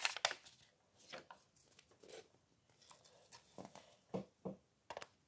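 Faint, scattered rustles and soft ticks of a small paper pad being handled close to the microphone, its pages bent and flipped.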